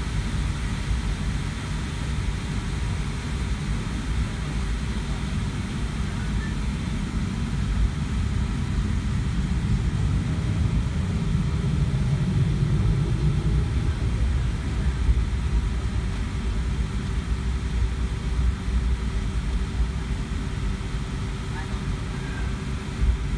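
Cabin noise in a Boeing 757-200 taxiing: a steady low rumble from the engines and the rolling airframe, with a constant hum running through it. The rumble swells louder around the middle.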